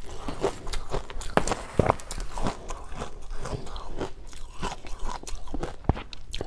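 Close-miked crunching and chewing of powdery frozen ice dusted with matcha powder, a dense run of crisp, irregular crackles and clicks. A metal spoon scrapes and digs into the ice in a glass bowl as a big scoop is lifted.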